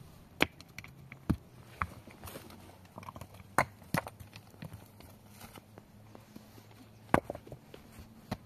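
Rocks being picked up and set down on stony ground and against a cinder-block wall: about half a dozen sharp stone knocks at irregular intervals.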